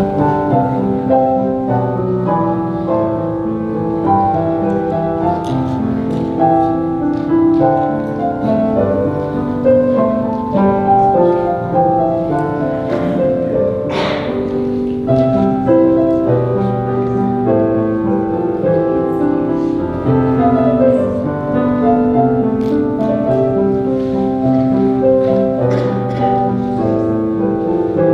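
Piano offertory music: slow, sustained chords and melody played without a break, with a few brief clicks over it.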